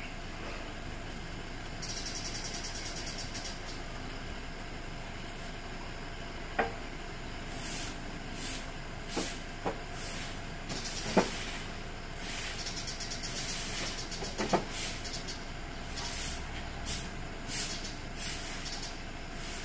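Stick broom (walis tingting) sweeping dry leaves across concrete: repeated short brushy scrapes, irregularly spaced, starting about a third of the way in, with a few sharp taps among them.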